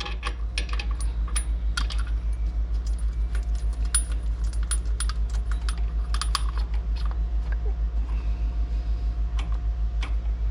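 Wrenches, sockets and bolts clinking and ticking at irregular intervals as hardware goes back onto a mower's clutch bracket, over a steady low pulsing hum.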